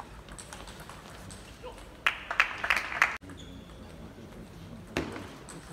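Table tennis rally: the plastic ball clicks sharply off bats and table. About two seconds in, the point ends with a loud burst of shouting and clapping, which cuts off abruptly; the next rally's ball strikes follow.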